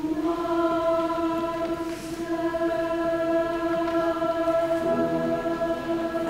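Girls' choir holding one long, steady chord, the closing chord of the song, with a lower note joining about five seconds in.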